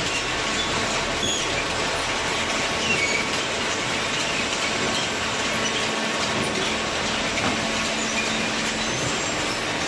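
Steady mechanical running noise from machinery, with a few short high squeaks early on.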